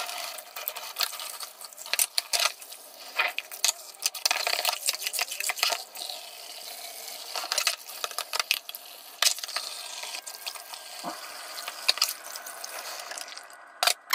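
Tap water running into a kitchen sink while stainless steel saucepans are scrubbed with a sponge. Many short clinks and knocks sound over the steady hiss of the water.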